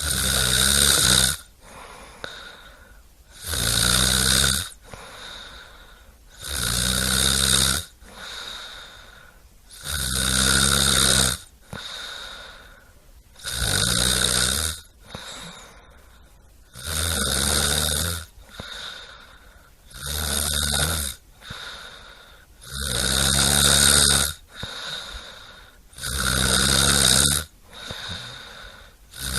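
Loud, steady snoring: a strong snore about every three and a half seconds, each lasting just over a second, with softer breathing between.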